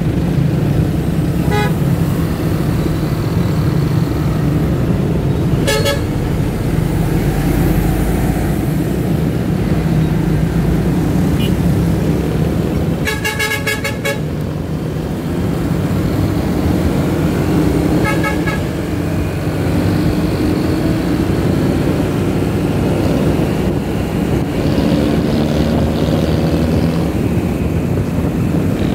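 Motorcycle engine running in heavy road traffic, with vehicle horns beeping: several short toots and one longer honk of about a second about halfway through.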